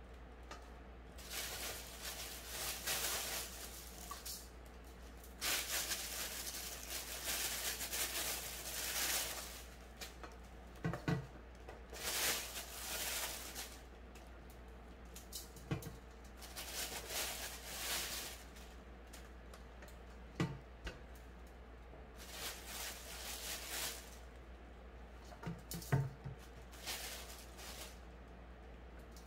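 Rustling and crackling as clusters of purple coral mushrooms are handled and pulled from a plastic bag into a stainless steel bowl, coming in bursts of one to a few seconds, with a few soft thumps.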